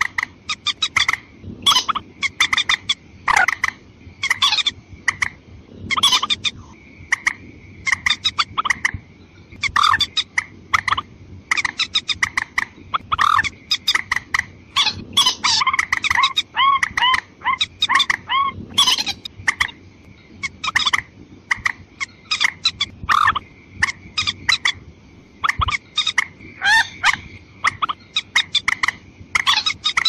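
Runs of short, sharp clucking and croaking calls of a rail (mandar), repeated throughout with brief gaps. A steady high thin tone runs underneath.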